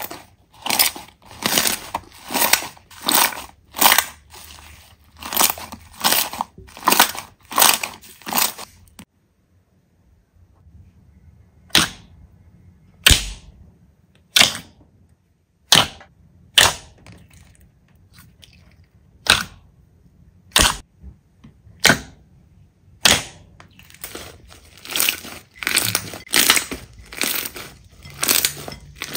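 Slime being handled, giving a run of sharp crackling pops, about two a second. The pops thin out to single ones after a short pause in the middle, then bunch up again near the end.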